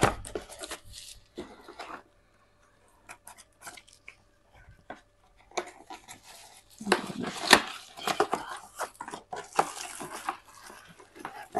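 Fingers picking at and peeling packing tape off a cardboard shipping box. Scattered scratches and clicks come first, then from about halfway a denser run of scraping and tearing with the cardboard rustling.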